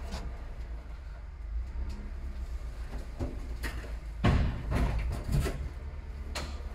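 A vehicle engine idling with a steady low rumble, with a few sharp knocks and a loud burst of clunking and clattering about four seconds in.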